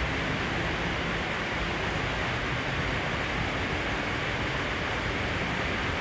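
Steady rain falling: an even, unbroken hiss with no thunder or other sudden sounds.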